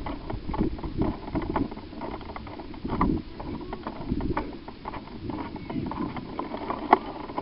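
Irregular footsteps and rustling of a player moving on foot, with one sharp click near the end.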